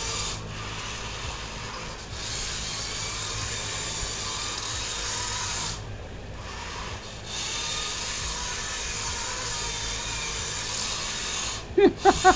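Small electric RC drift car whirring as it drives and slides across a smooth floor, dropping off twice as the throttle eases.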